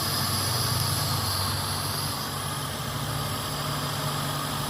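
Daihatsu petrol engine idling steadily. It is running again after a crank-but-no-start fault that was traced to a blown 10 A engine fuse.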